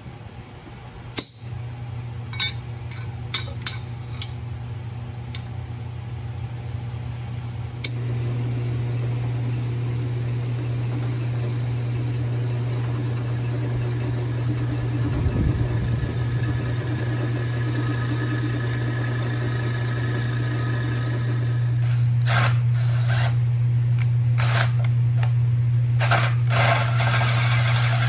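A handful of sharp hammer blows on steel bracket stock at an anvil in the first several seconds, then an electric drill motor running steadily from about eight seconds in while boring through steel, getting louder again near the end.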